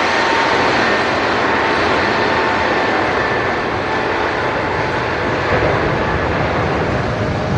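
Jet airliner engines running close by: a steady, loud rush with a faint high whine held over it.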